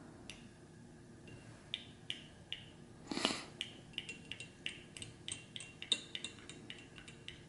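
Drops of blue liquid paint falling from a squeezed dropper bottle into a small glass jar of water, making faint little plinks: a few scattered at first, then about three a second. One brief louder rustle about three seconds in.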